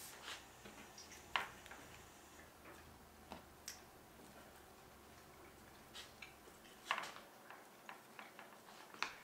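Scattered light taps and clicks, irregularly spaced, as egg-and-cheese patties are lifted off a wire cooling rack and set onto hamburger bun halves on a countertop, over faint room tone.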